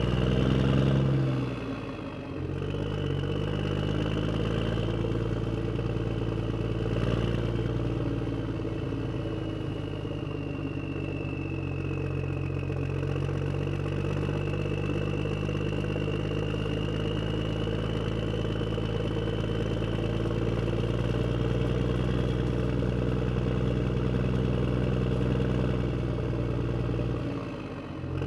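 Steady engine-like idling drone from a Huina RC construction vehicle, with a thin high whine that slowly rises and falls over it. The drone drops briefly about two seconds in and again near the end.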